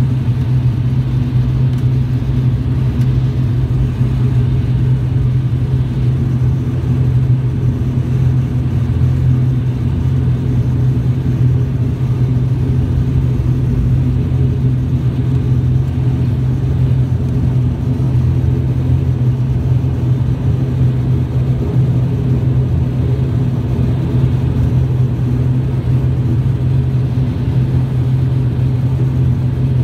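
Cabin drone of an ATR 42-600's twin Pratt & Whitney PW127M turboprop engines and propellers, heard inside the passenger cabin. It is a loud, steady low hum with no rise or fall, the engines at low ground power while the aircraft taxis.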